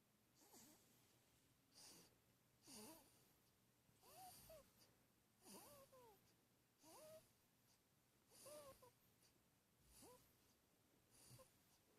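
Faint, wheezy snoring: short squeaky, whistling snores, each with a breathy hiss, repeating about once every second and a half.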